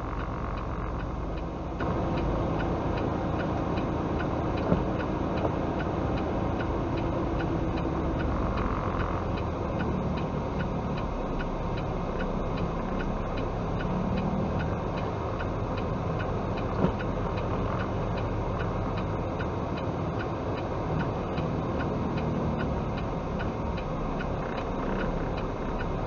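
Truck cab interior: the diesel engine running steadily with road noise as the truck creeps along in slow traffic, with a light regular ticking.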